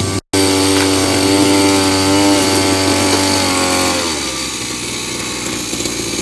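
Petrol brush cutter engine running at high speed, its pitch dropping about four seconds in, then running on at a lower speed.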